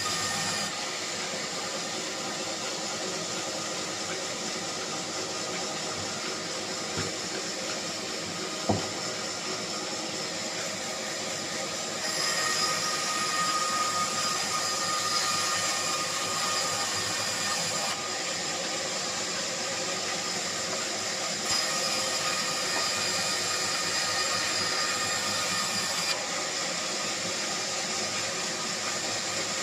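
Bandsaw running and cutting wood: a steady hiss with several held tones. It grows louder and brighter for stretches of a few seconds, with one short knock about nine seconds in.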